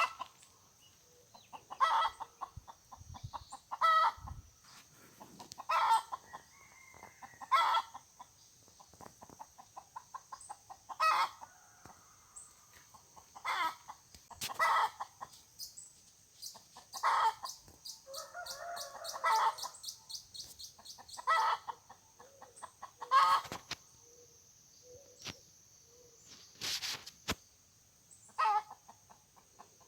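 Chickens clucking in short bursts every second or two, over a steady high-pitched hiss.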